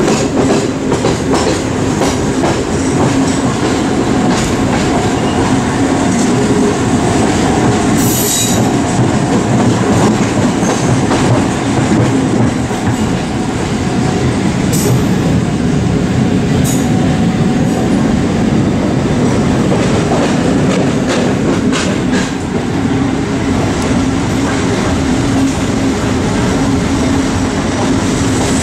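Running noise of a train hauled by a MÁV M43 diesel-hydraulic locomotive, heard through an open window: a steady rumble of wheels on rail with an engine drone underneath, and short high-pitched wheel squeals about 8, 15 and 17 seconds in.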